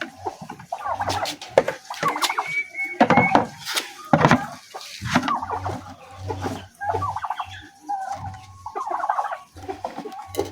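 A flock of domestic poultry calling and clucking, many short calls overlapping, with a few sharp knocks mixed in.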